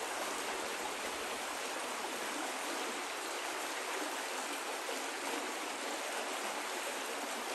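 Shallow rocky creek running: a steady, even rush of water over stones.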